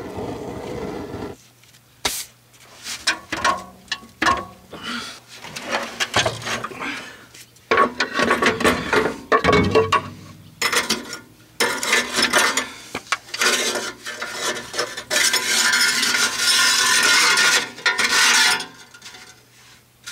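Ratchet wrench clicking in irregular runs against the rusted exhaust clamp nut under the car, with metal scraping and knocking; a longer stretch of fast ratcheting comes near the end. A gas torch hisses briefly at the start and cuts off about a second in.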